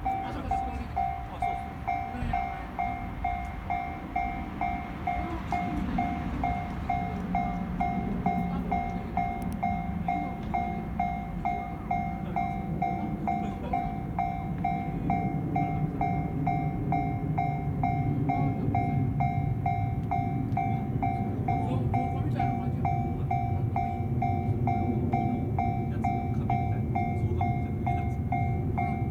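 Japanese level-crossing warning bell ringing steadily, about two strikes a second, while a train rumbles past on the tracks, its noise building through the second half.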